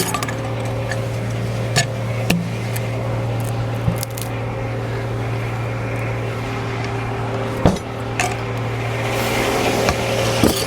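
Frick No. 1 sawmill running with a steady drone and low hum, broken by a handful of sharp knocks and clanks. The noise swells for a moment near the end.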